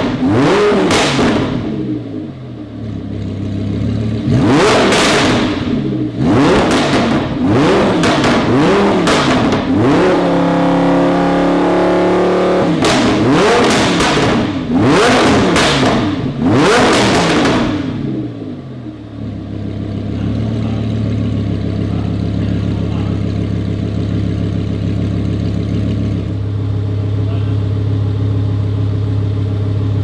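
Lamborghini Huracan LP610-4's V10 engine through an aftermarket Fi Exhaust valvetronic exhaust, free-revved while the car is stationary: a series of quick revs that rise and fall, with a few seconds held at higher revs midway. After about 19 seconds it settles into a steady idle.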